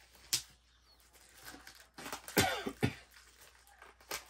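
Heavy hardcover book volumes being handled and pulled from a stack, with a few sharp knocks. About two and a half seconds in there is a short cough-like sound, about half a second long.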